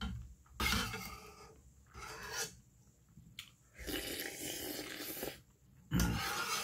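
Close-up mouth sounds of eating beef tripe and intestine soup: several short bursts of slurping and chewing, with a longer slurp of broth about four seconds in.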